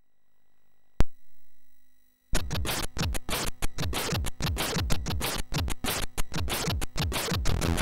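Commodore 64 SID-chip demo music starting up: a sharp click about a second in with a short fading tone, then, after a brief gap, fast electronic music with rapid, scratch-like noise-drum hits over a bass line.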